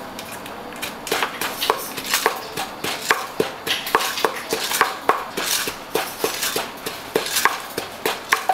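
Pestle pounding papaya salad in a mortar at a steady pace of nearly two strokes a second, with lighter clatter between the strokes.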